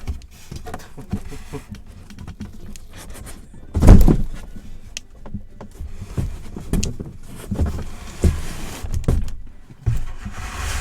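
Cardboard boxes being handled and shifted: a run of knocks, thuds and rustles, with one heavy thump about four seconds in.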